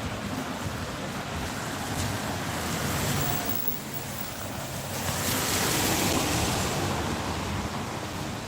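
Outdoor street traffic noise with wind buffeting the microphone: a steady rush that swells twice, about three seconds in and again around five to seven seconds in, as vehicles pass.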